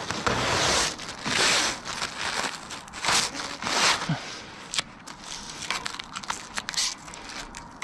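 Clear protective plastic film being peeled off steel roof flashing and crinkling in a gloved hand, in irregular rustling bursts that are loudest in the first four seconds.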